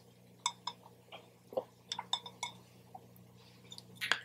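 Tea being sipped through a straw from a glass: scattered faint clicks, sips and small clinks, with a louder cluster of clicks near the end. A faint steady low hum runs underneath.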